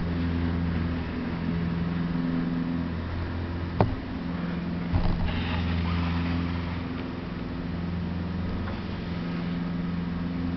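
A steady low, droning hum with a few sharp knocks: one at the start, one about four seconds in and one about five seconds in.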